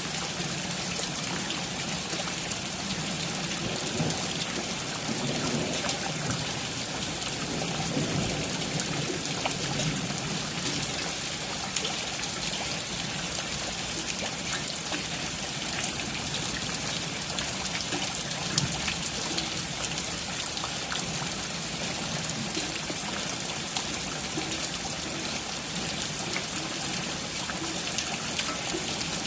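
Steady rain falling, with a constant hiss and many small drips and taps. A faint low rumble rises for a few seconds from about five seconds in.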